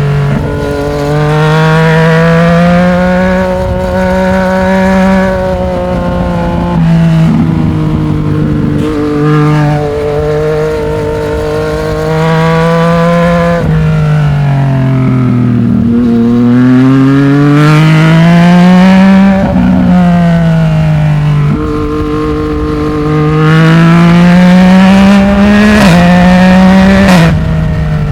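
Yamaha MT-09's inline-triple engine through a Black Widow aftermarket exhaust, on the move. The engine note rises again and again as it pulls through the gears, each climb ending in a short drop, and sinks in a long slowdown near the middle before rising once more.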